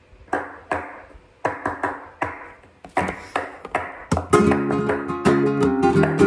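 Flamenco palmas (handclaps) beating out a tango rhythm in sharp, uneven claps. About four seconds in, a flamenco guitar joins, strumming chords with the claps.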